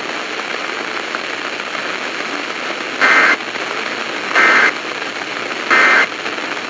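Three short bursts of EAS (SAME) digital data tones, the end-of-message signal that closes an emergency alert broadcast, starting about three seconds in and roughly a second and a half apart. Under them is a steady radio hiss.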